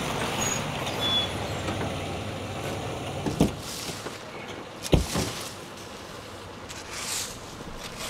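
A car running as it pulls up, its engine and tyre noise dying down after about three seconds. Then come two heavy thumps about a second and a half apart, car doors shutting.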